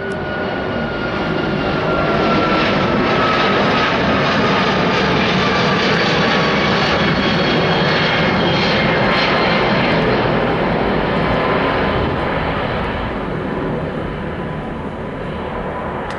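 Airbus A340-600's four Rolls-Royce Trent 500 turbofans at climb power after take-off, passing overhead: a loud roar with whining tones that slowly fall in pitch. It builds over the first couple of seconds and eases off in the last few.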